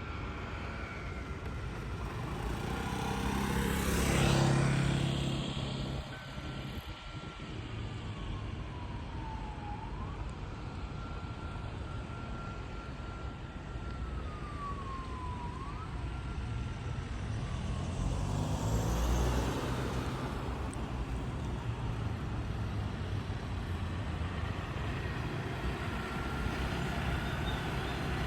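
Road vehicles passing on a street: an engine with a low rumble goes by close about four seconds in, and another pass-by swells about nineteen seconds in. Through the background runs a faint steady tone that several times glides down in pitch and jumps back up, like a distant siren.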